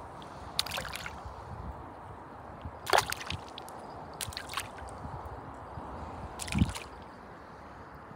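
Shallow water splashing as a hand lowers a small caught fish into it and lets it go. There are a few short splashes and sloshes, the sharpest about three seconds in and again about six and a half seconds in.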